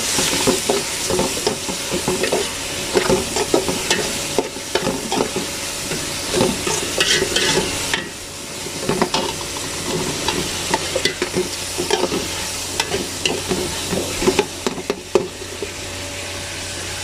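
Chopped tomatoes, onions and green chillies sizzling as they fry in oil in a large metal pot, with a metal spoon stirring and scraping against the pot in quick, irregular strokes.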